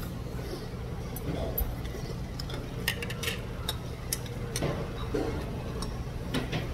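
A metal spoon clicking and scraping against a bowl in irregular taps while eating, the taps coming more often about halfway through, over a steady low room hum.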